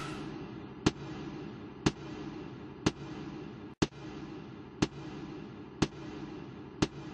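Sharp clicks, evenly spaced about once a second, over a faint steady hum.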